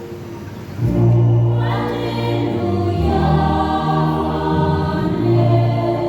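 Church choir singing an Easter hymn. A held chord swells loudly a little under a second in, and the voices follow in shifting parts.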